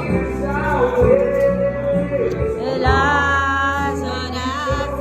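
A pop song with a singer's voice holding long, bending notes over a steady instrumental backing.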